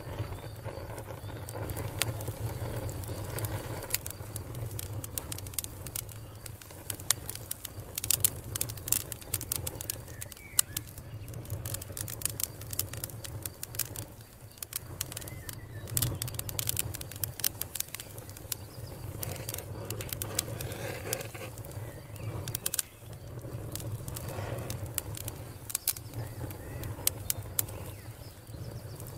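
Wood campfire crackling, with irregular sharp snaps and pops over a steady low rumble.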